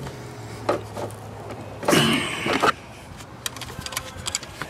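Small clicks and light scraping of a hand tool working plastic parts around a coolant temperature sensor's retaining clip, the clicks coming thick and fast in the second half. A low steady hum runs through the first half, and there is a louder burst of noise about two seconds in.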